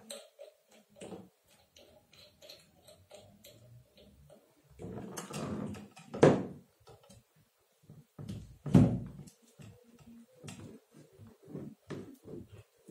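Handling noise as an Asahi 18-inch industrial stand fan's motor housing is fitted onto its pole: scattered small clicks and rattles of plastic and metal parts, with two loud knocks about six and nine seconds in.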